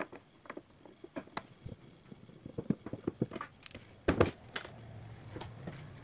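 Scattered light clicks and knocks of hands and tools working on a plastic washing machine casing, with a louder clatter about four seconds in.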